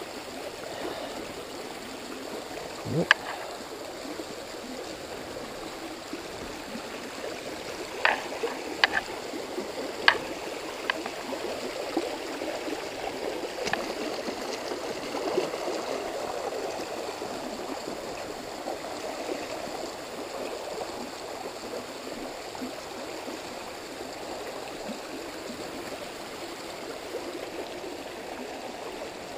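Shallow, rock-bottomed mountain creek running and gurgling over rocks, a steady rush of water. A few short, sharp sounds stand out: one about three seconds in and several between about eight and fourteen seconds.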